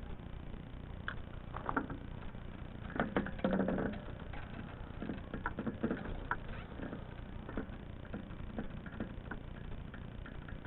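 Scattered knocks and clicks of a plastic pipe union and fittings being handled, the loudest cluster about three seconds in, over a steady low rumble.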